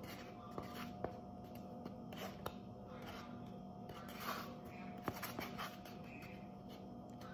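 A utensil scraping and tapping inside a styrofoam cup of seasoned flour. A few sharp clicks are heard, and a longer scratchy rustle comes about four seconds in, over a steady low hum.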